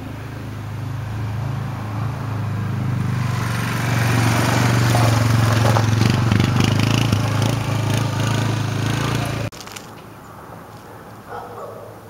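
Yamaha Wolverine 450 quad's single-cylinder four-stroke engine running as the quad is ridden along. The engine drone grows louder over the first few seconds, holds steady, then cuts off suddenly about three-quarters of the way through.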